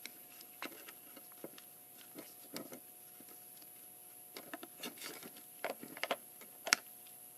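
Irregular small clicks and taps of the CB microphone and its wiring being handled, with the sharpest click about two-thirds of the way through, over a faint steady hum.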